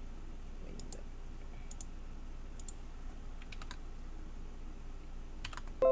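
Scattered soft computer clicks, mostly in quick pairs about once a second, over a low steady room hiss. Right at the end a loud plucked chord begins.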